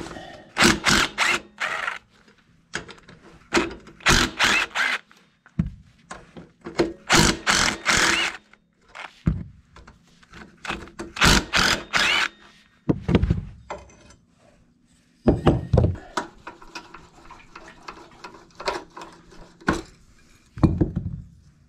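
DeWalt 20V cordless driver run in four short bursts, spinning out bolts on the underside of a Honda ATC 200S engine, followed by a few sharp knocks of tools and metal parts.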